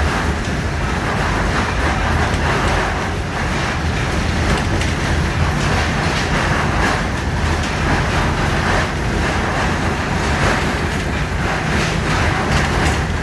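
Tram running along its rails, knocking and rattling over a steady rumble, with faint irregular clicks from the wheels on the track.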